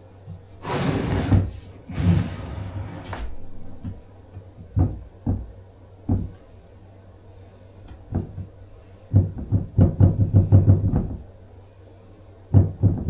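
Porcelain floor tiles being handled and knocked on the floor: two short scraping slides near the start, then single hard knocks and a quick run of clacks, like a tile rocking on a high seam.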